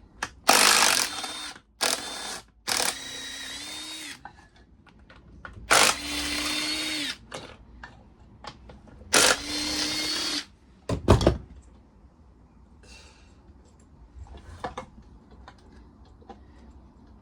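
Power drill-driver running in four short bursts of about a second each with a steady whine, driving fasteners out of a lawnmower engine. About eleven seconds in there is a single loud clunk, followed by light clatter of metal parts.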